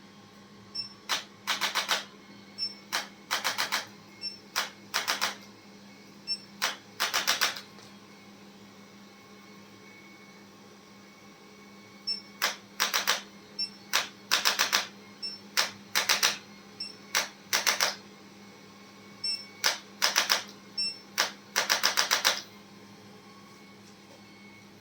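Short bursts of rapid mechanical clicking, each burst a few quick clicks, repeated many times with short pauses and one longer pause about a third of the way in.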